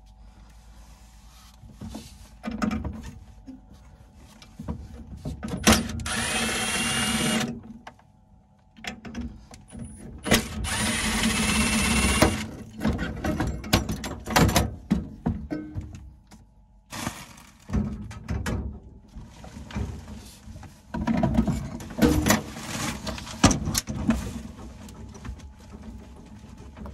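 Cordless drill-driver running in two bursts of about two seconds each, its whine rising as it spins up, amid scattered knocks and clanks of metal parts being handled.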